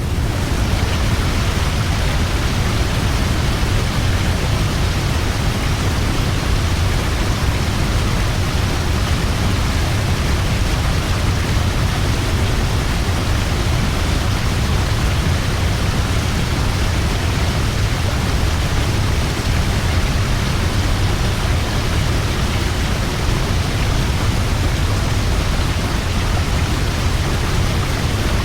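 Large waterfall: a steady, loud roar of falling water, deepest and strongest at the low end, with no change from start to finish.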